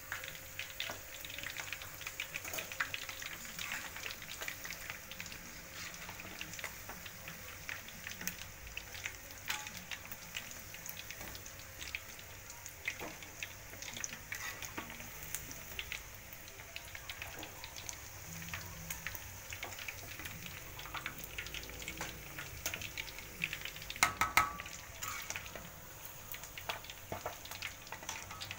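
Chicken pieces deep-frying in hot oil in a wok: a steady crackling sizzle with scattered small pops. A brief, louder clatter comes near the end.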